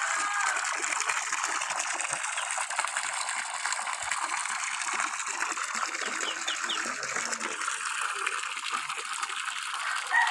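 Water from a submersible pump's PVC discharge pipe gushing and splashing steadily into a muddy pool. A new bore well is being flushed, still pumping out cloudy water.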